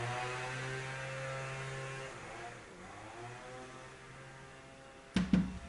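Engine of landscaping power equipment running outside, its pitch rising and falling and growing quieter about halfway through. Two sharp knocks come near the end.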